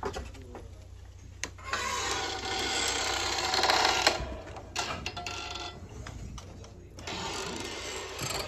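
A wooden screen door is pulled open with a rasping, scraping noise and swings shut with a clack about four seconds in; a shorter stretch of similar scraping comes near the end.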